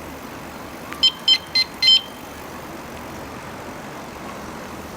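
Electronic bicycle horn beeping four quick times, about a second in, to warn anyone coming around a blind corner. Steady background noise runs underneath.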